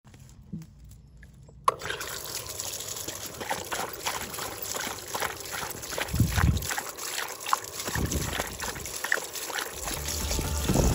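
Water trickling and splashing, starting suddenly about two seconds in, with a couple of low rumbles partway through.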